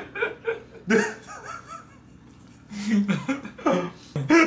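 Men laughing in several short bursts of chuckles, the loudest burst near the end.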